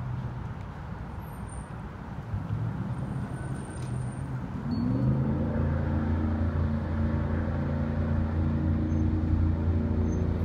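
Jet boat's engine running low, then revving up a little before halfway through and holding a steady, louder drone as the boat pulls away and picks up speed.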